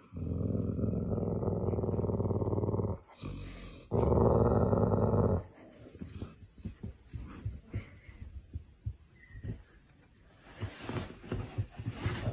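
Dog growling in play, two long low growls about a second apart, while being nipped and climbed on. After them, quieter scattered scuffles and knocks of animals moving on a couch.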